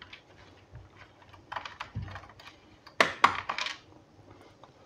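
Light clicks and taps of small plastic and metal laptop parts being handled on an opened laptop palmrest, with a louder cluster of clicks about three seconds in.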